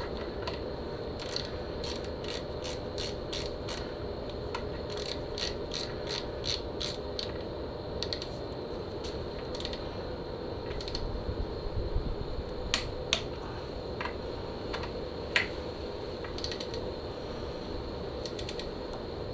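Ratchet wrench clicking in quick runs as the fork leg's front axle pinch bolts are tightened to 20 newton metres, with a few sharper single clicks in the second half.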